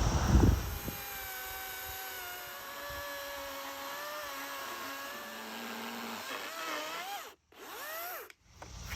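Power tool motor whining steadily while cutting through a tree trunk. Its pitch wavers and then rises and falls a few times near the end, as the speed changes under load.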